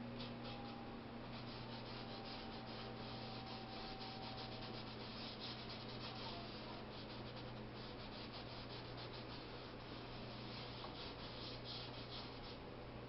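Paintbrush strokes scratching across a canvas: quick runs of short rubbing strokes, with a faint steady hum underneath.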